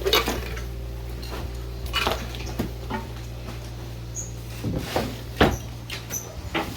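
Scattered knocks and clatters from work on a building job, over a steady low hum that cuts off about two-thirds of the way through.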